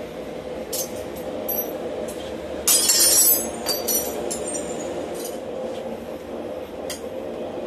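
A forge runs with a steady roar while steel bar stock clinks against the anvil and steel tooling, with a loud ringing metallic clatter about three seconds in.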